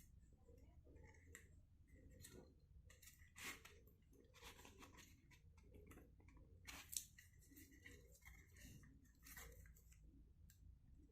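Faint scraping, rustling and clicking of small objects being handled, with a sharper click about seven seconds in.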